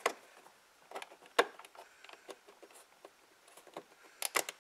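Scattered clicks and knocks of a 2021 Ford F-150's A-pillar interior trim being handled and worked loose by hand and with a pry tool. The sharpest knock comes about a second and a half in, and a quick run of clicks comes near the end.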